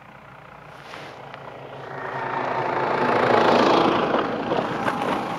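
Snowmobile driving past close by towing sleds, its engine growing louder to a peak about three and a half seconds in, then fading as it moves away.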